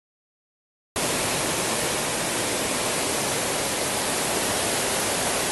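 Dead silence for about a second, then a sudden start of steady rushing of fast-flowing floodwater.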